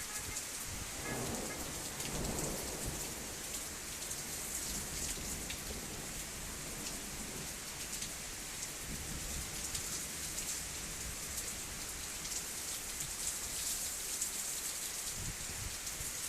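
Heavy rain and sleet falling steadily: a dense hiss full of small ticks from drops striking surfaces. A brief low rumble sounds between about one and three seconds in.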